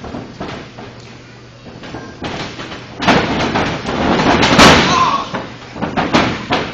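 Wrestlers' bodies slamming onto a wrestling ring mat over crowd shouting, with the loudest slam about four and a half seconds in. Near the end come a few short smacks as the referee slaps the mat for a pin count.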